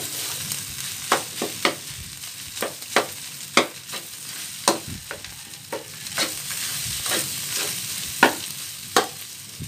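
A metal spatula scrapes and knocks against a metal wok as fried rice is stirred and its clumps are pressed apart, over a steady frying sizzle. The knocks come irregularly, one to three a second.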